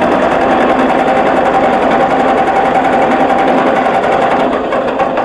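Tractor engine's electric starter cranking steadily for about five seconds with a fast even whir, the engine not catching; it stops near the end. The engine will not fire because the distributor is soaked with water.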